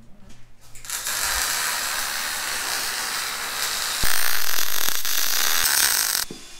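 MIG welding arc sizzling steadily as a bead is run on a steel bracket, louder from about four seconds in, then stopping shortly before the end.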